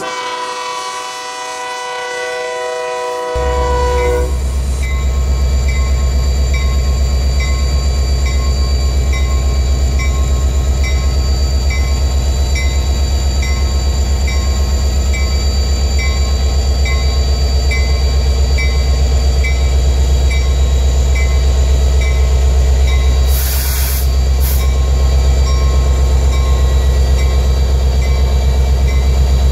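Background music for the first three seconds. Then the deep, steady rumble of Union Pacific EMD SD70M diesel locomotives running close by, with a faint regular ticking about three times every two seconds and a short hiss late on.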